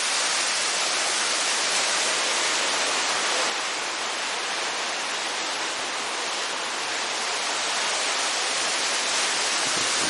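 Mountain waterfall in full flood after rain: a steady, loud rush of falling water, a little quieter for a few seconds in the middle.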